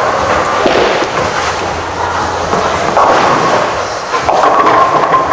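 Bowling alley noise: bowling balls rolling down the lanes and pins crashing, with a few sharp knocks about half a second in, around three seconds and after four seconds.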